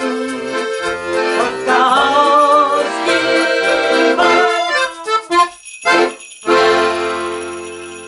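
Ballone Burini Cantus 34a piano accordion playing the close of a polka, with a shaken jingling percussion keeping the beat. After two short stabbed chords a little past halfway, it holds a final chord that fades away.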